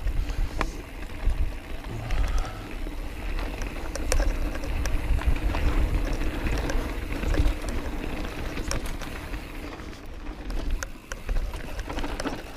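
Mountain bike riding fast down a rocky dirt singletrack: wind buffeting the microphone and tyres rumbling over dirt, with the bike rattling and knocking sharply over rocks.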